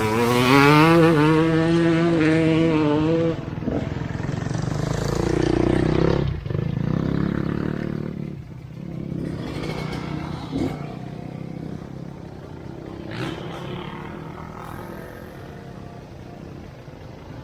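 Off-road motorcycle engine revving up for the first three seconds or so, then running on at a lower level, with a few sharp knocks and clatter.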